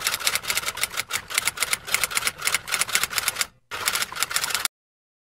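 Typewriter-style typing sound effect: a rapid run of key clicks with one short break, cut off abruptly near the end.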